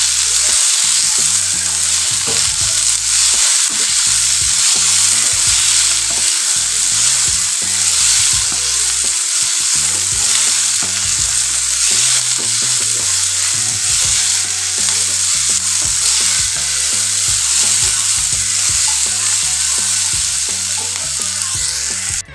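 Chopped onion, capsicum and tomato sizzling steadily in hot oil in a nonstick kadai, stirred with a wooden spatula.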